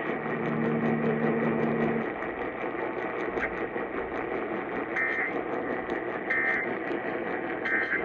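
Emergency Alert System end-of-message data tones coming through a portable radio's speaker over AM static: three short identical warbling bursts about a second and a half apart, in the second half. They mark the end of the Amber Alert broadcast. A low steady hum sounds under the static for the first two seconds.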